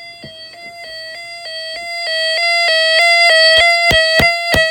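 Electronic alert tone switching back and forth between two pitches about three times a second, growing steadily louder over the first three seconds. It is the attention signal that comes before a severe weather alert.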